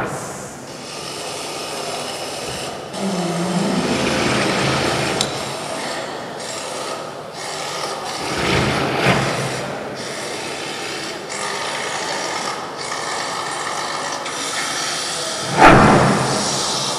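Noise-based interactive electronic performance soundtrack: dense rubbing, scraping textures that swell and fade, with a short low tone about three seconds in and a loud surge of noise near the end.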